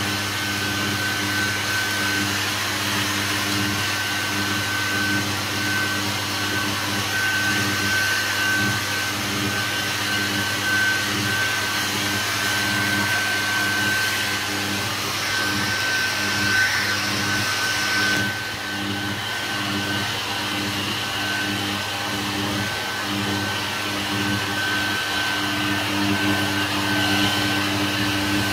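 Handheld hair dryer running steadily, blowing air with a low motor hum and a thin high whine over the rush of air. The level dips briefly about two-thirds of the way through.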